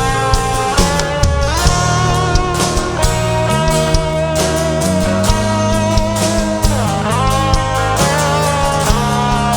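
Live rock band playing an instrumental passage: a sustained lead guitar line with pitch bends over bass and a steady drum beat.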